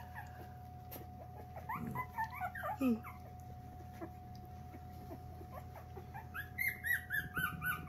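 Litter of two-week-old Coton de Tulear puppies whimpering and crying in short high squeaks, a few around two seconds in and a quick run of falling cries near the end. A faint steady tone sounds underneath.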